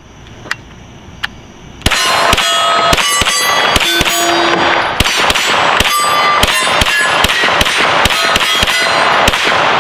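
A Glock 17 Gen 4 in a CAA Roni carbine kit firing a rapid string of 9mm shots, several a second, starting about two seconds in, with steel targets clanging and pinging at different pitches between the shots. It cycles on hot S&B 115-grain ammo, and the string stops near the end as the magazine runs dry and the slide locks open.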